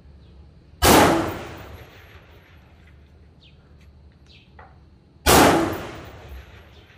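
M16A2 rifle firing two single shots of 69-grain Armscor 5.56 mm match ammunition, about four and a half seconds apart. Each shot is a sharp crack followed by a long echo that fades over about a second.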